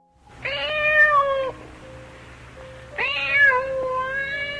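A cat meowing: two long, drawn-out meows, the second about twice as long as the first.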